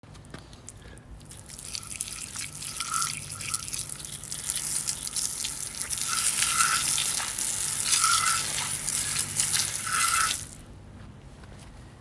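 A jet of water spraying onto a Briggs & Stratton Quantum small engine and splashing off the metal and the pavement, rinsing off degreaser. The spray builds over the first couple of seconds and cuts off suddenly about ten seconds in.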